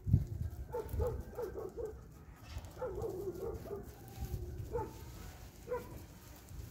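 Puppies whimpering and yipping: a quick run of short whines, then a longer wavering whine, then a couple of single yelps, over a low rumble. A low thump right at the start is the loudest sound.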